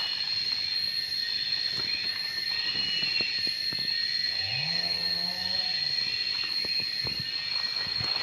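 A cow mooing once a little after the middle: a low call that rises, holds for about a second and falls away. Behind it, insects keep up a steady, high-pitched drone throughout.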